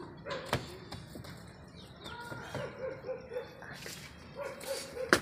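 An animal giving a quick run of about five short calls a little over halfway through, with small birds chirping and a few sharp knocks.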